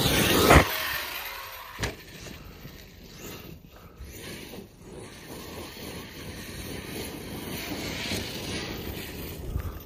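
Arrma Outcast 8S BLX brushless electric RC truck driving across rough grass, its motor and tyres heard as a steady rushing that grows slowly as it comes back closer. A loud rush at the very start and a single sharp knock about two seconds in.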